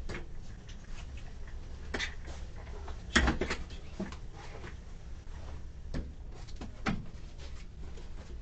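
A chair being carried in and set down at a small table: a series of knocks and clunks, the loudest about three seconds in, with a few lighter ones after.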